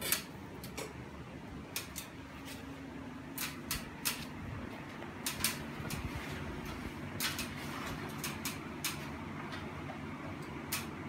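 About a dozen sharp clicks and clinks, spaced irregularly, from hands and tools working on a ceiling fan's metal motor housing and blade fittings during installation, over a steady low hum.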